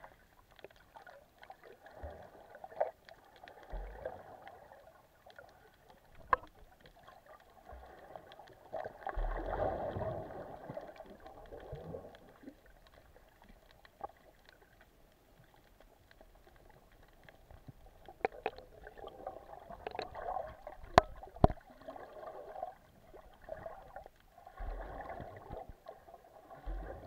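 Water heard underwater through a camera's housing: a muffled sloshing and swirling that swells up several times, with a few sharp clicks, the loudest about two thirds of the way in.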